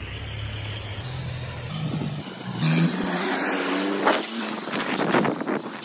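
A motor vehicle's engine running, its pitch climbing through the middle as it speeds up, with a few sharp knocks later on.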